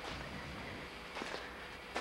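Faint footsteps and shuffling, with a few soft knocks a little past halfway, over a steady background hiss and low hum.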